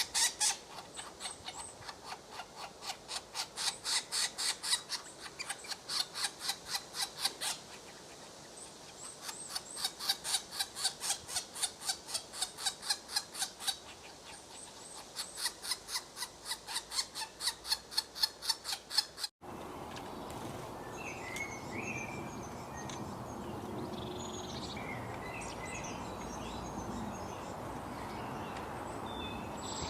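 A bird calling in rapid, evenly repeated notes, in three long runs with short pauses between. About two-thirds through, an abrupt cut to a different recording: a steady background hiss with scattered small bird chirps.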